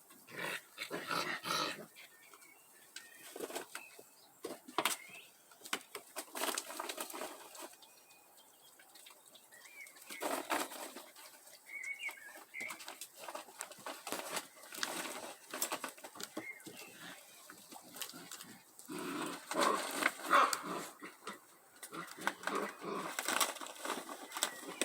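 An animal making irregular, breathy noises in short bursts of varying length, with brief pauses between them.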